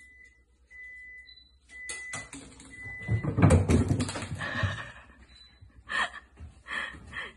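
Cat's paws thudding and scrambling on a wooden floor as it runs, loudest about three to five seconds in, with a few sharp clicks before it.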